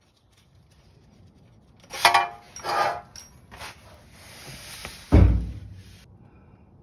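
Metal tools and parts clinking and clattering under a car, twice around two to three seconds in, then a single heavy thud just after five seconds, the loudest sound.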